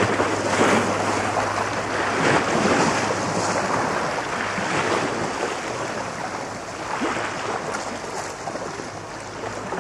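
Steady rushing outdoor noise with irregular swells, wind on the microphone, and a low steady hum that stops about two seconds in.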